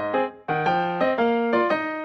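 Background music: a piano melody played in separate notes, with a brief pause about half a second in.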